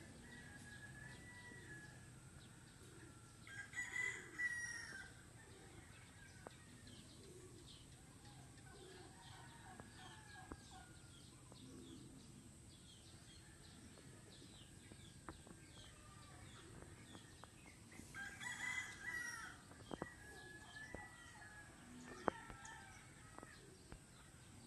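A rooster crowing twice, once about four seconds in and again about fourteen seconds later, each crow lasting a second or two.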